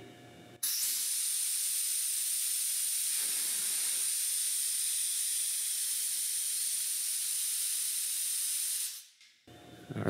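Compressed air blowing freely out of the compressor tank through a quick-connect air coupler and its plug fitting, in a flow test. A steady high hiss starts sharply about half a second in and cuts off sharply about nine seconds in.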